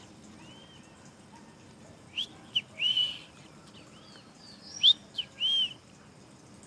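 A bird calling twice, each phrase a couple of sharp rising chirps and then a longer arched note, about three seconds apart. A fainter bird calls in between.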